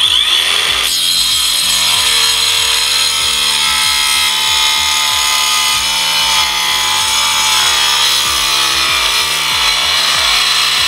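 Akaido AKCS125BL 21V cordless 5-inch circular saw with a diamond tile blade cutting through 9 mm cement board: a loud, steady high motor whine over the gritty hiss of the blade grinding through the board.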